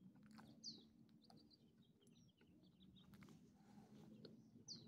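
Faint bird chirps, a few short falling notes about a second in, over a low steady hum, with scattered soft clicks.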